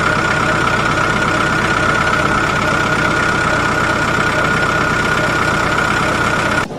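A machine running steadily with a low rumble and a high whine, stopping abruptly near the end.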